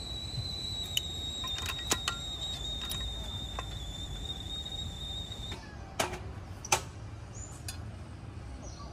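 Clicks and clinks of espresso gear, a portafilter and a small glass, being handled on the bar, over a steady high-pitched tone that cuts off suddenly about five and a half seconds in. Two sharper knocks follow soon after, the second the loudest.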